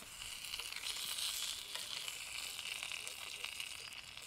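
Slices of spam frying in a small frying pan over a campfire: a steady sizzling hiss sprinkled with small pops and spits of fat. It is loudest about a second in, as fresh slices go into the hot pan.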